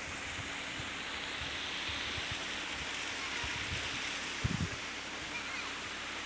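A clear mountain river rushing over rocks: a steady hiss of flowing water. A brief low thump about four and a half seconds in.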